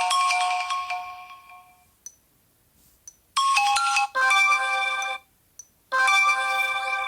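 Sony Xperia ringtone previews played one after another: a chiming melodic ringtone fades out, then after a short near-silent gap with a few faint clicks, new chiming ringtones start and cut off abruptly as the next one begins.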